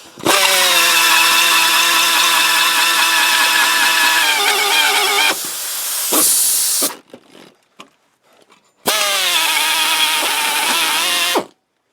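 Pneumatic air drill running a hole saw: a steady whine for about six and a half seconds, its tone changing about five seconds in, then stopping. After a short pause it runs again for about two and a half seconds.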